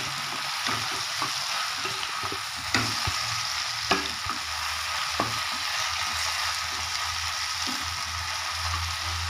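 Sliced okra sizzling with a steady hiss as it is stir-fried in oil alone, without water, in a pan. A spatula scrapes and knocks against the pan now and then.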